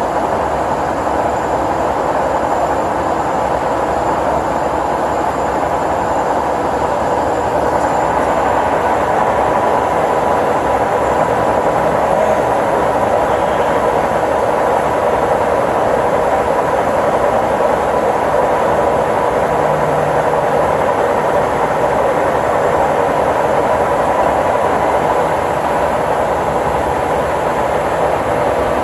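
A 1955 King 52-inch vertical turret lathe running under power: a loud, steady mechanical noise from its drive and gearing, holding the same speed throughout.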